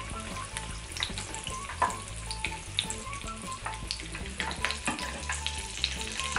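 A breadcrumb-coated hot dog deep-frying in hot oil in a pan: the oil bubbles and sizzles steadily, with scattered sharp crackling pops throughout.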